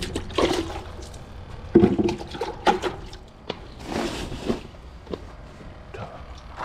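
Water splashing and sloshing in a minnow bucket as hands work in it for a live minnow, in two brief bursts about half a second and four seconds in, with knocks and handling noise between.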